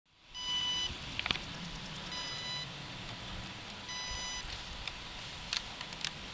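Radio-control electronics of an electric RC glider giving three short electronic beeps, about half a second each and nearly two seconds apart, with a few sharp clicks in between.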